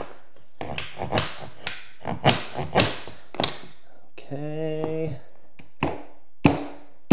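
Claw hammer tapping a flooring install tool against luxury vinyl planks to lock the click joints tight, about a dozen sharp irregular knocks with a pause midway and three more near the end.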